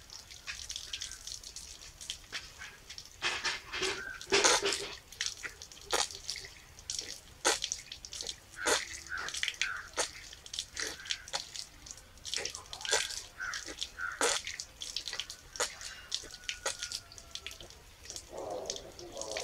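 Water splashing and dripping in irregular, sharp little splashes, with a few short bird chirps.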